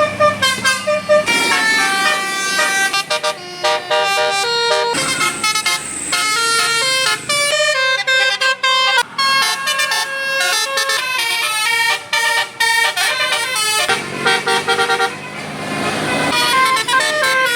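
Multi-tone 'telolet' Basuri bus horn playing a quick melody, its notes changing several times a second in runs with short breaks between them.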